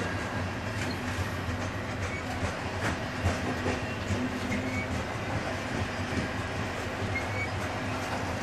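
Freight train of covered grain hopper cars rolling steadily past: a continuous rumble of wheels on rail with irregular clicks and knocks, and a couple of brief high squeaks near the end.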